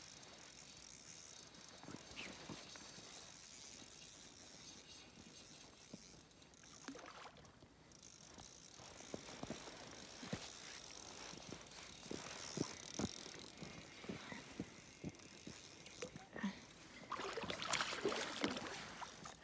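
Fishing reel ticking as a hooked fish is wound in, then the fish splashing at the surface near the end, the loudest sound.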